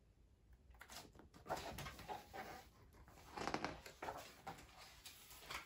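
Page of a large hardcover picture book being turned and handled: paper rustling and swishing with small taps, starting about a second in, with two louder swishes.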